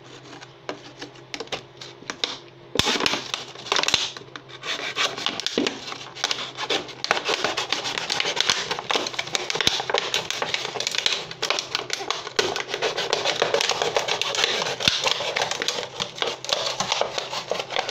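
Small knife sawing through a thin plastic water bottle, the plastic crinkling and crackling as the bottle is turned against the blade. A few clicks at first, then dense rapid scratching from about three seconds in.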